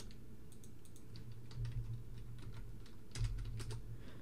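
Typing on a computer keyboard: scattered, irregular keystrokes, with a faint low hum underneath.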